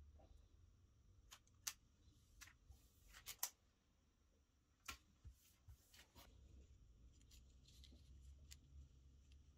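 Quiet handling of clear plastic film: a few sharp clicks and crinkles as the film is pressed down and trimmed with a snap-off utility knife, over a low steady hum.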